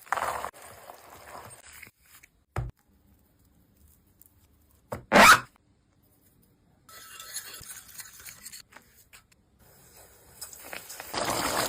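Kitchen food-preparation sounds: intermittent scraping and rubbing with pauses between, a single knock, and one short loud burst of noise about halfway through.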